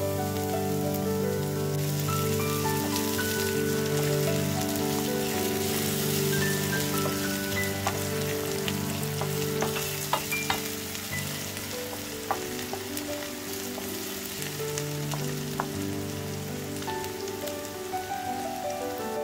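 Chopped red onion frying in oil in a nonstick pan: a steady sizzle that thickens about two seconds in as the freshly poured oil heats, with a few sharp ticks from the wooden spoon or spattering oil. Soft background music with sustained notes plays underneath.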